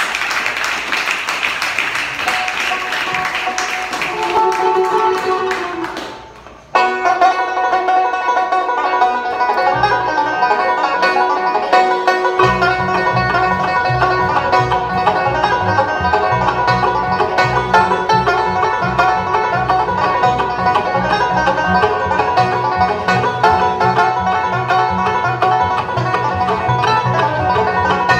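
Audience applause with a few plucked notes, then an acoustic bluegrass band of mandolin, banjo and guitar starts a tune about six seconds in; an upright bass joins about six seconds later.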